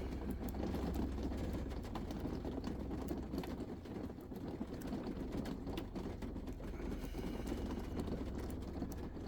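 Lock pick and tension wrench working a pin-tumbler lock's keyway: irregular small clicks and scrapes as the pins are raked and set, over a steady low hum.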